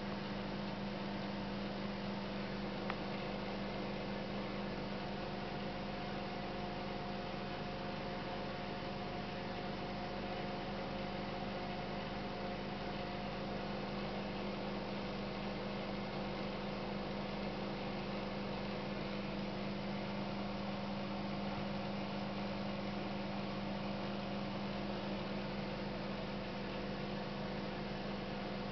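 Aquarium equipment running with a steady electrical hum and a hiss over it. A faint higher tone joins for several seconds about a third of the way in.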